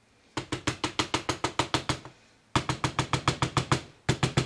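A spatula patting and dabbing the soft top of a soap loaf in a wooden mold to texture it, making quick, regular sticky taps of about seven a second. The taps come in three runs, with short pauses about two seconds and about four seconds in.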